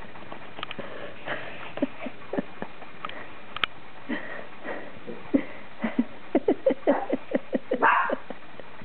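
Coton de Tulear puppy yipping: short calls scattered at first, then a quick run of about four a second past the middle.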